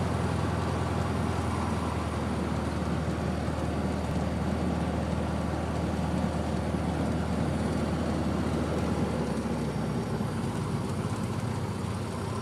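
Cessna 150G's four-cylinder Continental O-200 engine and propeller running steadily, heard inside the cabin, easing slightly in level near the end.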